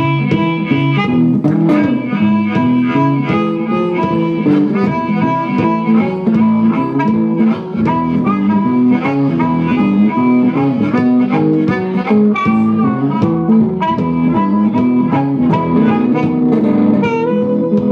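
Live blues band playing an instrumental break, with guitar and harmonica playing over a steady rhythm.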